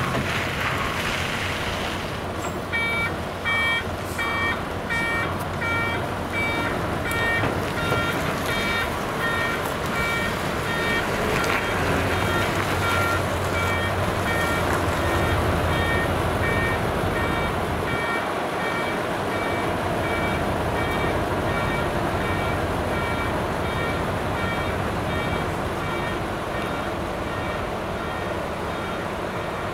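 Dump truck's reversing alarm beeping about twice a second over the steady running of its diesel engine as it backs up; the beeping starts a couple of seconds in and fades near the end.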